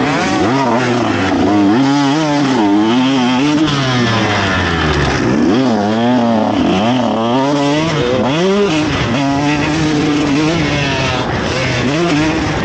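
KTM SX150 single-cylinder two-stroke motocross engine heard onboard under race riding, its pitch rising and dropping over and over as the throttle is opened and shut through the track's turns, holding steadier for a couple of seconds late on.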